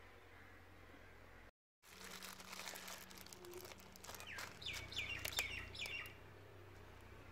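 Plastic bag crinkling as gloved hands work grease out of it, with a bird chirping a quick run of about five short falling calls about halfway through.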